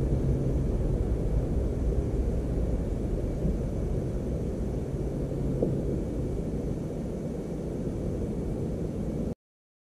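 Low, steady engine rumble from a distant motor, with a faint steady low hum in it, slowly fading. It cuts off suddenly near the end.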